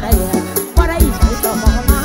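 Modern Isan mor lam band music: a fast, steady kick-drum beat with a shaker, under a melody line that slides between notes.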